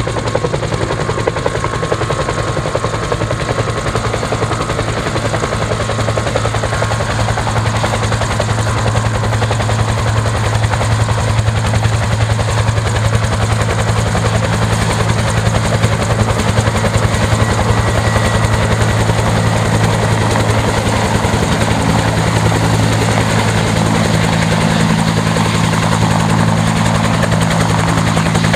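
Bell UH-1 "Huey" helicopter running steadily, its two-blade main rotor beating fast and evenly over a continuous low turbine hum.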